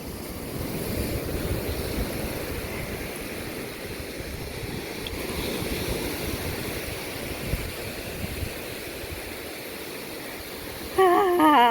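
Ocean surf washing up the beach, a steady rushing that swells and eases. A person's voice comes in briefly near the end.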